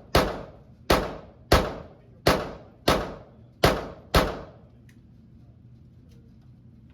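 Pistol fired in steady succession: seven shots about two-thirds of a second apart, stopping a little over four seconds in.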